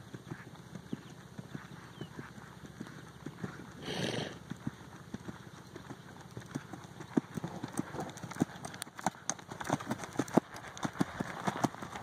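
Hoofbeats of a heavy draft horse cantering under a rider on dry dirt, growing louder and sharper in the second half as the horse comes near.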